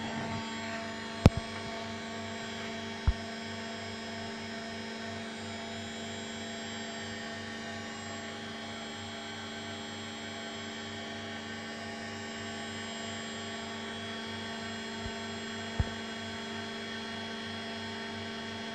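CNC router spindle running steadily, a hum made of several steady tones, with a few sharp clicks: about a second in, about three seconds in, and once more later.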